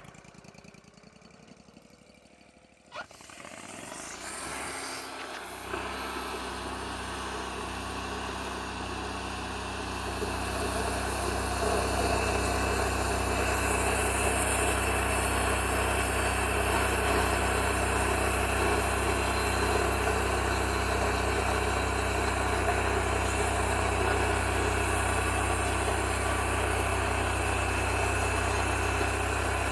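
An engine starts about three seconds in, after a sharp click, and settles into steady running, growing louder from about ten seconds in.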